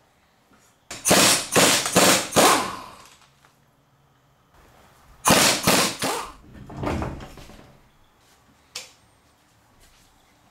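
Pneumatic impact wrench hammering lug nuts loose off a truck's front wheel in short bursts: four bursts about a second in, then three more about five seconds in.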